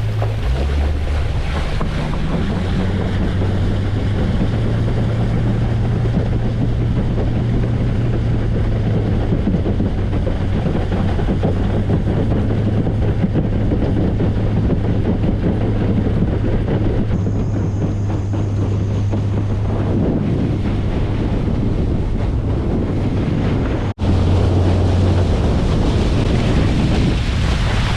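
Boat motor running steadily under way, a low hum under wind buffeting the microphone and water rushing past the hull. The sound breaks off briefly near the end and picks up again with a slightly different hum.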